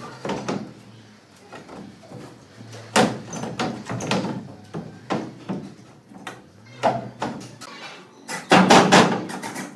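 A series of irregular knocks and bangs, with a dense cluster of loud strikes near the end.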